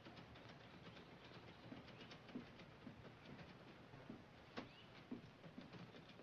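Very faint outdoor ambience: a few short rising bird chirps among scattered soft ticks and low knocks, with one sharper click about four and a half seconds in.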